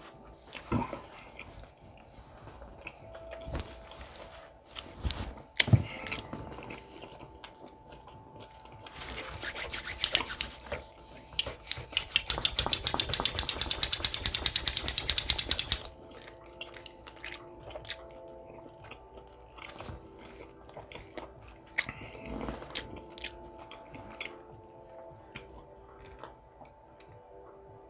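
Close-miked chewing with wet smacks and small mouth clicks. About nine seconds in, a fast, even rubbing of palms against each other starts, louder than the chewing, and stops suddenly some seven seconds later.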